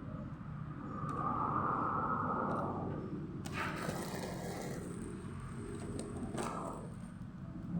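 Handling noise of an unboxing: a rustling burst about three and a half seconds in, and a short sharp click or knock about six and a half seconds in, over a steady low background hum.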